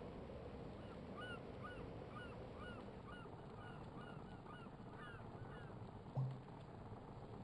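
Birds calling: a run of short, arched honking calls, about three a second, over a steady background hiss, followed by a brief low thump about six seconds in.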